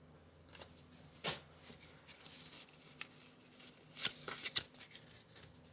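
Foil Pokémon booster pack wrapper and trading cards being handled, in short scattered rustles and crackles, with a sharp crackle about a second in and a busier cluster about four seconds in.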